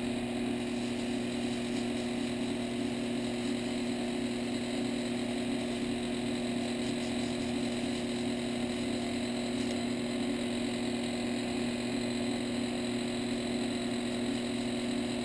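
Small wood lathe running with a steady hum, with sandpaper held against the spinning wooden workpiece to sand its underside.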